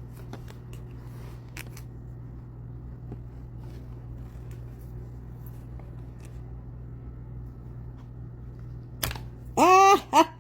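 Long-nose pliers working at a stuck piece, with scattered faint metal clicks and ticks over a steady low hum. Near the end a loud high-pitched voice cuts in with a rising pitch and a few quick short repeats.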